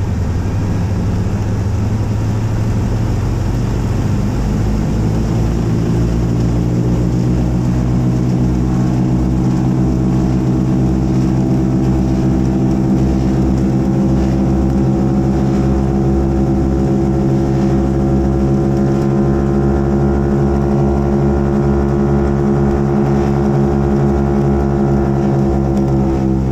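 Ford Tri-Motor's three radial engines and propellers at takeoff power, heard from inside the cabin: a loud, steady drone whose pitch climbs over the first several seconds as the engines come up to full power for the takeoff run and climb-out, then holds steady.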